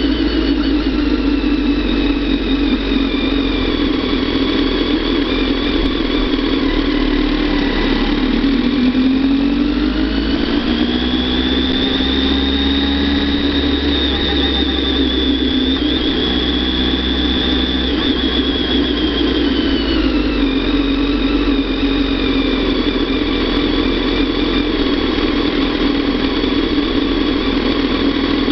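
Kawasaki ZX-10R inline-four motorcycle engine running steadily at low revs while riding. Its note rises a little about a third of the way in, holds, then drops back about two-thirds through.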